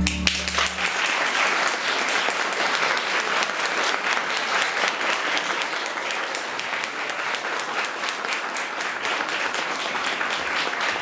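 Audience applause, many hands clapping steadily at an even level. The last low note of the song's backing music dies away in the first second.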